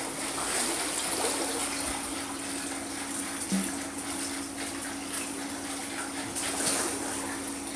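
Steady rush of water in a small indoor pool, with light splashing and a low steady hum underneath.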